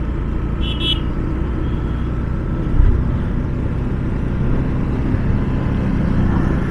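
Motorcycle riding at a steady cruising speed: a steady engine drone under road noise. A short high-pitched beep sounds about a second in.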